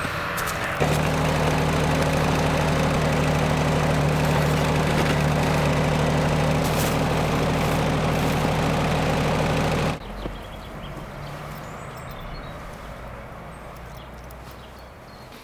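Sawmill engine running steadily at high level, starting under a second in and dropping away abruptly about ten seconds in to a quieter, fading hum.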